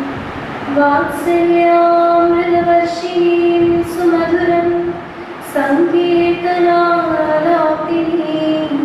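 A woman singing a prayer song solo into a microphone, in long, slow held notes, with a short break about five seconds in.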